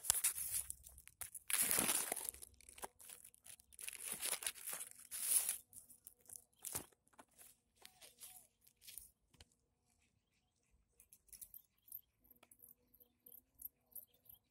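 Rustling, crinkling and crunching handling noise, loudest in bursts during the first six seconds, then fading to scattered faint clicks and crackles.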